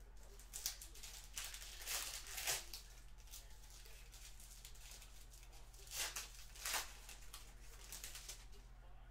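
Foil trading-card pack wrapper crinkling as it is torn open and handled, in a few short rustles over a low steady hum.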